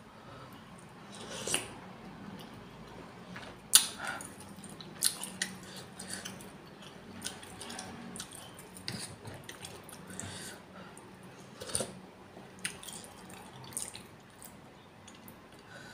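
Close-miked eating: a spoon clinking and scraping in a ceramic bowl of meatball soup, with sips of broth and chewing. Short, scattered clicks and wet bursts, the sharpest click about four seconds in.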